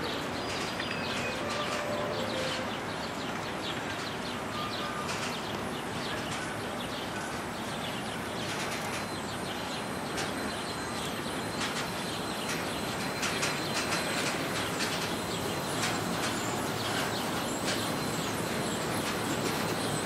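Moscow monorail train running along its elevated beam overhead: a steady rolling noise, with clicks that come more often in the second half as the train draws closer.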